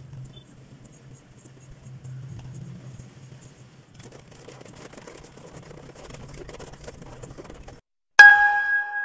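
Low steady hum of a car cabin moving slowly in rain, with a faint patter. Near the end it cuts off, and a loud bright two-tone chime strikes and rings down slowly.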